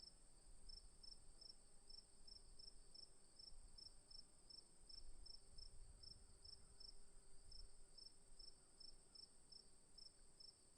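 Crickets chirping in the afternoon, faint: a steady high trill with a second cricket's short chirps repeating regularly, roughly three a second.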